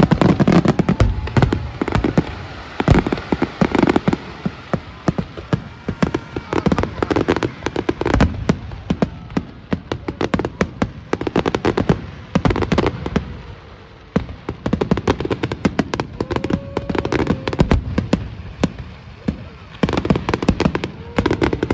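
Fireworks display going off overhead: a rapid, continuous barrage of bangs and crackles, coming in loud clusters every couple of seconds.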